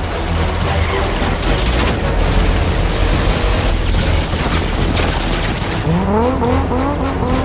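Film chase sound mix: a classic Aston Martin DB5's six-cylinder engine running hard under a dense low rumble, with scattered gunshot bangs. About six seconds in, the engine note climbs in quick repeated rising steps as it revs high.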